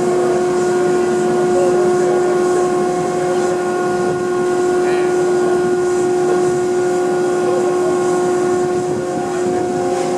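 Gantry crane travelling with a yacht hanging in its slings: a steady, unwavering tone with overtones sounds over the noise of the machinery.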